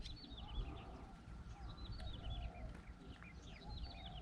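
Birds calling: many short, high, falling chirps overlapping one another, with a few lower calls underneath.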